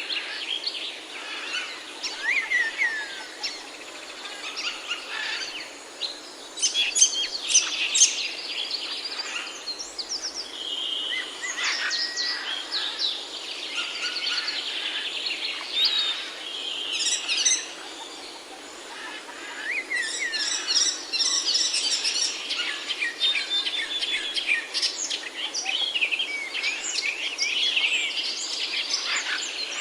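Several songbirds chirping and calling at once, with quick overlapping notes and short sweeps, over a steady background hiss.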